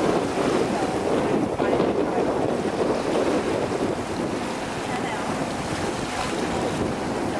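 Wind buffeting the microphone over the steady rush of water around a sailing yacht moving through choppy sea.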